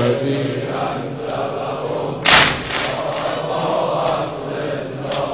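A pause between the sung lines of a Farsi noha lament: a low haze of crowd voices and one sharp strike a little over two seconds in, part of the lament's beat that recurs about every three seconds.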